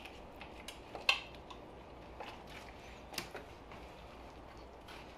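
Kitchen knife clicking and tapping against a plastic cutting board and bone while a deer's front shoulder joint is cut apart: a few short, sharp clicks, the loudest about a second in and another just after three seconds.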